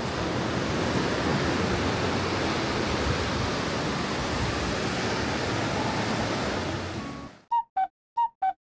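A steady rushing noise, like waves or water sweeping past, fades out about seven seconds in. Then, over silence, a two-note falling chime sounds twice.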